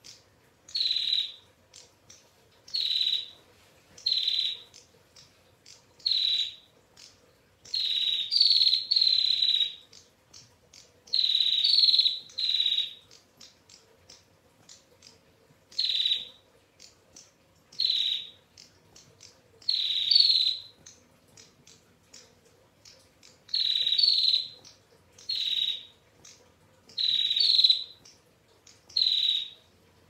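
Female prinia (prenjak) giving its trilling 'ngetir' call over and over: about a dozen high, buzzy trills, each half a second to a second and a half long. They come roughly every one to two seconds, some in quick runs of two or three, with short pauses between.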